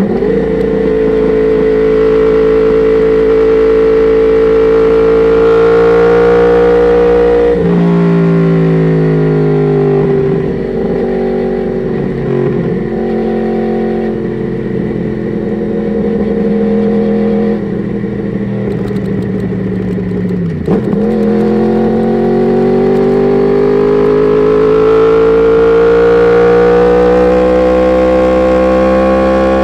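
Yamaha R1 inline-four sportbike engine through an Akrapovic exhaust, under way on the road. The engine pitch holds steady, drops sharply about 8 seconds in and eases off, then after a quick blip about 21 seconds in climbs steadily through the last several seconds as the bike accelerates.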